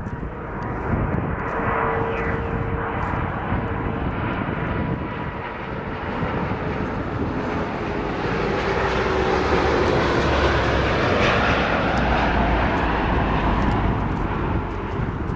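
Airbus A330-300 airliner on final approach with its Rolls-Royce Trent 700 engines at approach power: steady jet engine noise with a whining tone that slides down in pitch, growing louder in the second half as the jet passes.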